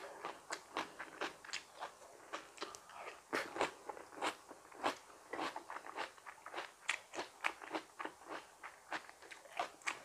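A person chewing crunchy raw vegetables: a steady run of short, sharp crunches, about three a second.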